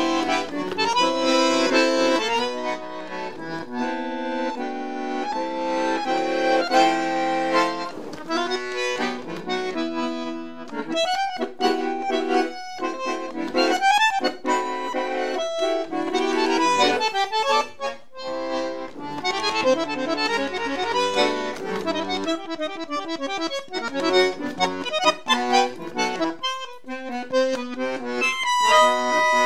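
Bandoneon playing a song from Misiones, moving between held chords and quick runs of notes.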